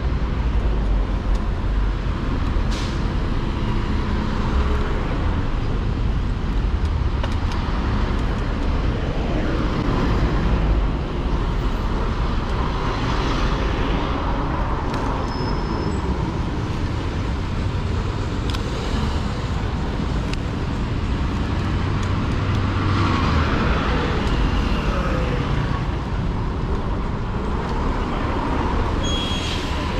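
Steady road-traffic noise of cars passing, heard from a moving e-bike, with a constant low rumble and a few vehicles swelling and fading as they go by.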